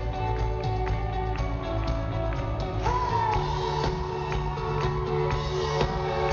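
Indie rock band playing live in concert: a steady drum beat under guitars, with a voice singing a note that slides up and is held from about three seconds in.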